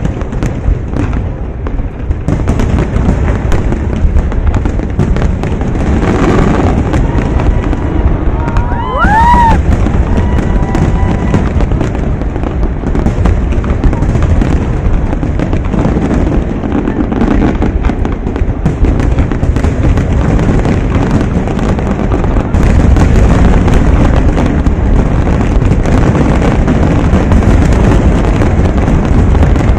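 A professional fireworks show of aerial shells bursting in a dense, continuous barrage of booms and crackles. About nine seconds in, a brief whistle rises and falls in pitch, and the barrage grows louder about two-thirds of the way through.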